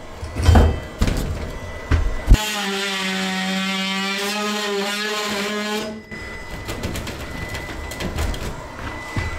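Cordless drill running steadily for about three and a half seconds at the top of a wall stud, its motor pitch sagging slightly before it stops suddenly. Before it, knocks and clicks on the wooden 2x3 framing, with one sharp bang about two seconds in.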